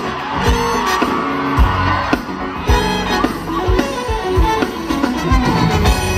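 Live band music with a steady drum beat and guitar.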